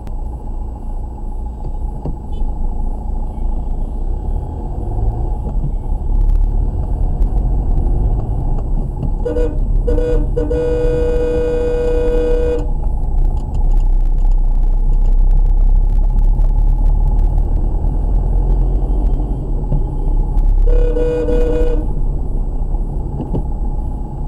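Car horn honking twice briefly, then a long blast of about two seconds, and another honk of about a second near the end, over the steady low rumble of a car driving in city traffic, heard from inside the car.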